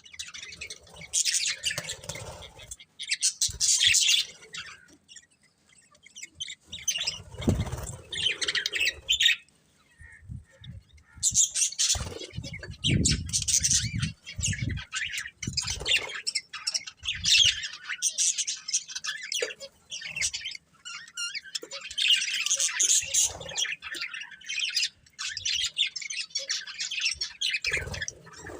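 Budgerigars chirping and chattering in bouts of rapid high chirps and squawks, with a few low rustling thumps among them.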